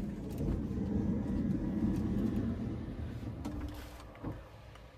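A car running with a low rumble that is loud for the first few seconds and then fades away.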